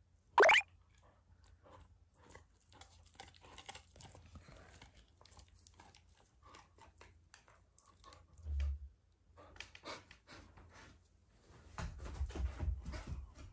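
A dog gnawing on a hard bone chew: crackling, crunching and clicks of teeth on the chew, denser and louder near the end. About half a second in there is one short, loud rising squeak, and a low thud a little past the middle.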